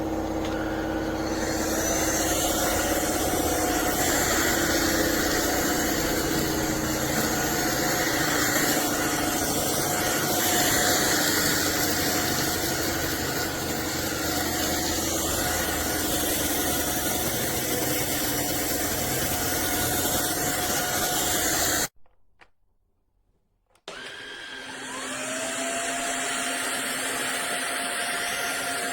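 Cordless stick vacuum cleaner (kalado KCV600) running with a steady whine. About 22 seconds in it stops for about two seconds, then starts again, its whine rising as the motor spins up and settles.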